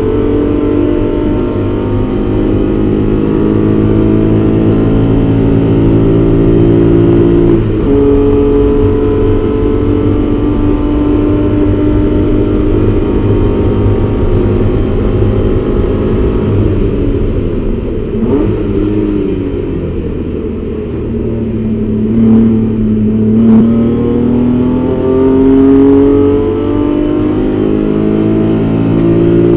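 BMW 325is race car's inline-six heard from inside the cockpit at full throttle, revs climbing, with an upshift about eight seconds in. Around two-thirds of the way through the engine comes off the throttle and the revs fall as the car brakes and downshifts for a corner, then the revs rise again as it accelerates out.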